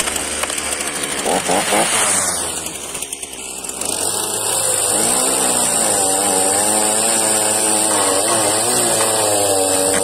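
Champion 241 two-stroke chainsaw starting up and running unevenly for a few seconds. About four seconds in it goes to a steady full-throttle run whose pitch wavers slightly as it cuts through wood slabs.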